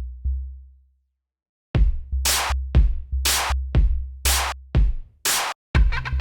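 Electronic background music with a drum-machine beat. A deep kick pulses, drops out briefly about a second in, then the beat comes back heavier with sharp snare-like hits.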